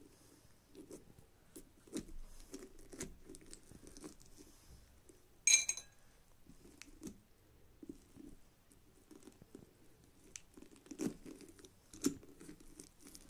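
Hand scooping the stringy pulp and seeds out of a hollowed pumpkin: faint, irregular soft pulls and rustles. One short ringing clink on the ceramic bowl comes about five and a half seconds in.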